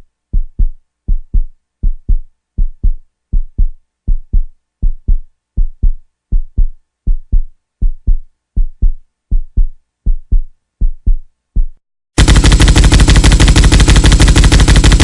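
Heartbeat sound effect: low double thumps (lub-dub) repeating evenly, about eighty beats a minute. About twelve seconds in it stops, and a loud, continuous burst of rapid machine-gun fire starts suddenly.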